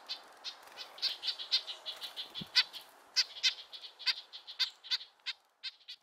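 Red-breasted nuthatches calling in a rapid run of short, high notes, several a second, with a brief lull near the middle: agitated calls protesting the jays at the feeding spot.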